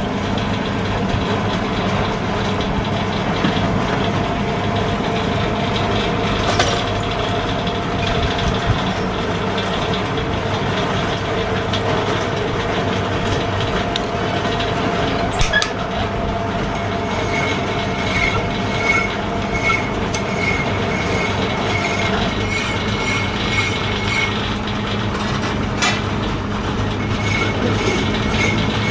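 Machinery running steadily with a constant hum, a few sharp clicks, and a faint high tick repeating about twice a second from a little past halfway.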